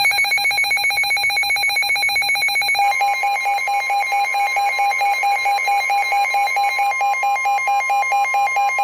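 A weather alert radio's electronic alarm: a loud, fast-pulsing buzzer tone that starts suddenly. From about 3 seconds in, NOAA Weather Radio's steady warning alarm tone sounds under it, the signal that a new warning is about to be broadcast.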